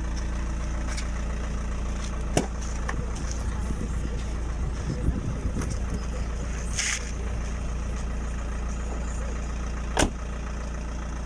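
A car driving along, its engine and road noise a steady low rumble, with a few sharp clicks or knocks.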